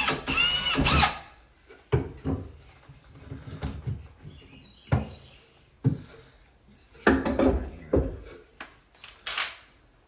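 Cordless drill with a pilot bit running briefly in the first second, its pitch rising and falling with the trigger, while he drills a pilot hole through the back of a wooden vanity toward the wall stud. Then a run of scattered knocks and clunks as the drill is moved and handled inside the cabinet.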